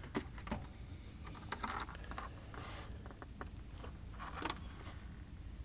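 Small clicks and brief scrapes of multimeter test-lead clips and wires being handled as they are hooked onto a fuel injector's connector pins for a resistance check.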